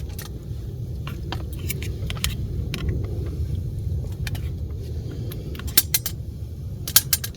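Metal cutlery clicking and clinking against a camp plate or mess tin, many short sharp knocks with the loudest near the end, over a steady low rumble.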